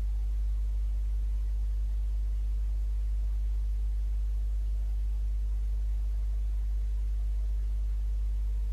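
Steady low electrical hum, unchanging throughout, with no other sound standing out above it.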